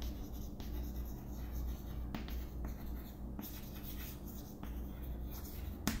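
Chalk scratching across a chalkboard as words are handwritten, with scattered sharp taps of the chalk and a steady low hum underneath.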